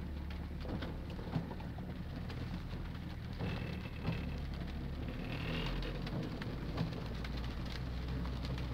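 Inside a 4x4's cabin: the engine runs with a steady low drone while the vehicle crawls over grass, and scattered raindrops tick on the windscreen and roof.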